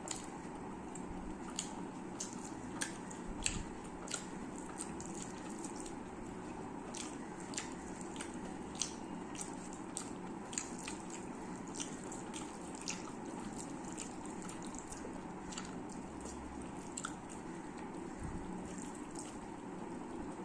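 Close-miked eating with the hands: many short, wet, irregular smacking clicks of chewing, and rice being squished and mixed by fingers on a steel plate, over a steady low hum.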